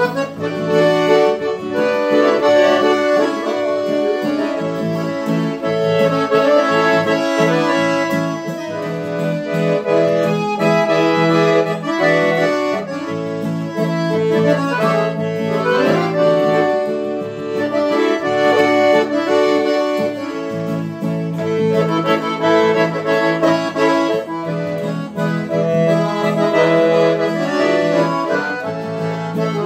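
Piano accordion playing a hymn melody in sustained chords over strummed acoustic guitar accompaniment, an instrumental passage with no singing.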